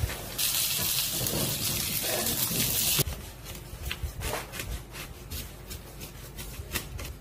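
Breaded chicken pieces sizzling in oil in a frying pan, a steady hiss that stops abruptly about three seconds in. Then a small paring knife cuts through the crisp fried crust on a cutting board, a run of short crunching cuts.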